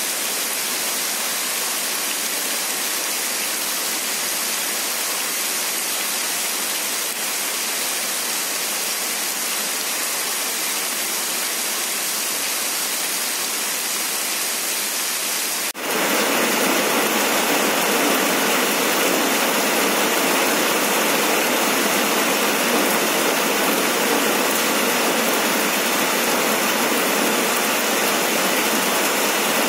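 Heavy rain falling steadily, a dense even hiss of a downpour. About halfway through the sound changes abruptly to a louder, fuller rain.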